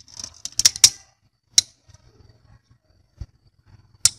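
Sharp metallic clicks and taps of a steel screwdriver tip against small screws and a steel tray. A quick cluster comes about half a second to a second in, then single clicks, with a dull knock about three seconds in.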